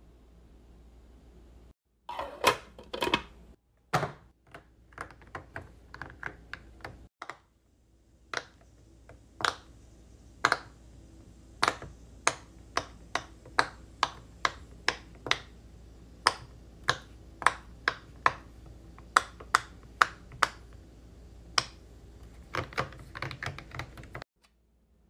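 Silicone pop-it fidget toy being pressed bubble by bubble with a fingertip, giving a string of sharp pops at about two a second, with quicker runs of pops near the start and near the end.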